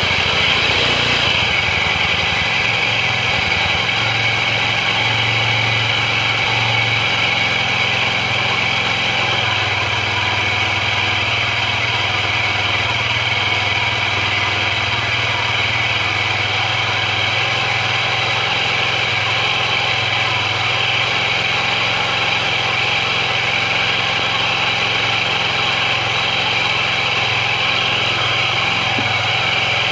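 Kawasaki scooter engine idling steadily with its belt-drive cover and variator removed, so the crankshaft and starter clutch (bendix) gear run exposed.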